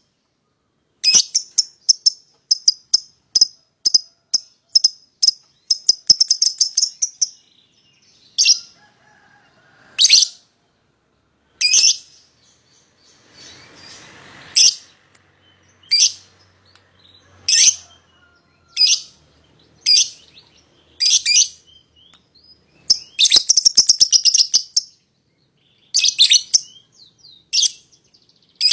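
A pair of young lovebirds calling. There are two fast runs of rapid, shrill, repeated chirps, the long chatter that keepers call "ngekek": one in the first seven seconds and one at about 23–25 s. Between them come single sharp chirps about every one and a half seconds.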